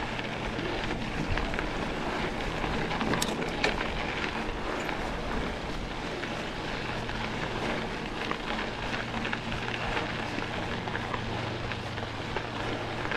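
Mountain bike rolling along a loose dirt trail: a steady rush of tyre noise and rattle mixed with wind on the mic, with a couple of sharp knocks a little over three seconds in.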